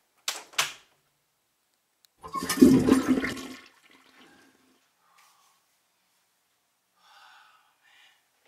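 Two sharp clicks, then a toilet flushing: a loud rush of water lasting about a second and a half that fades away.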